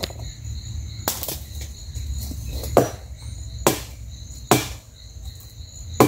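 Machete chopping into a tree trunk, five separate strikes about a second or so apart, with a dull blade. Insects trill steadily in the background.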